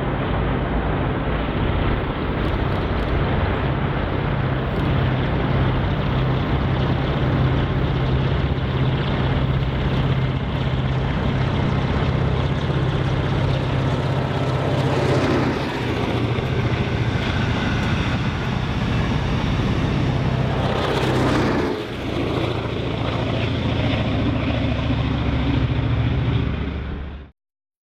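Steady drone of a diesel train engine working, with a brief swish about 15 s in and another about 22 s in; the sound cuts off suddenly near the end.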